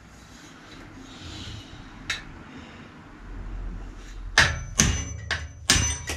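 Hammer blows knocking the cotter pin out of a bicycle crank to free the crank from the axle: one strike about two seconds in, then four quick strikes near the end, each with a short metallic ring.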